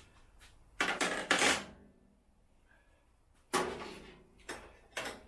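Toaster oven accessories and packaging being handled during unpacking: a few short bursts of rustling and clattering, the loudest about a second in and again about three and a half seconds in.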